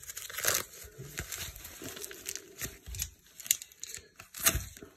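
Foam packing wrap crinkling and tearing as hands pull it open and scissors cut into it. It comes as a run of irregular crackles, with the loudest about half a second in and near the end.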